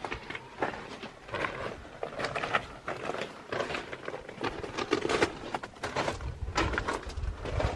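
Footsteps crunching irregularly on a rough rocky floor, with a low rumble coming in during the last couple of seconds.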